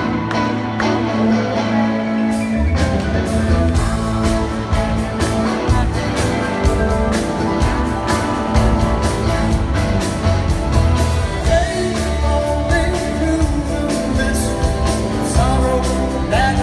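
Live rock band playing, with electric guitar over bass and drums; the low end and drum strokes fill out about three seconds in.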